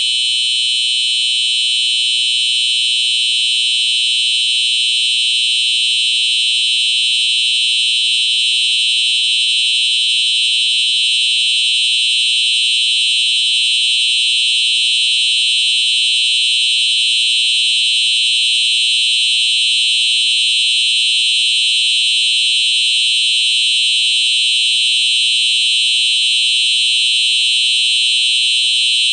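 Simplex 4901-9822 fire alarm appliance sounding a steady, unbroken high-pitched alarm, set off by a manual pull station on the fire alarm panel.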